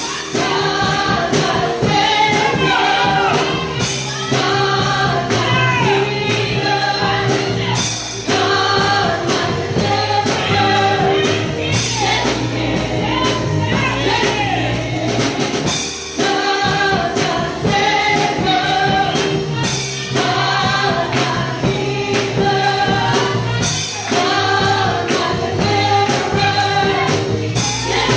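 Gospel praise music: a choir singing over a band with a steady beat.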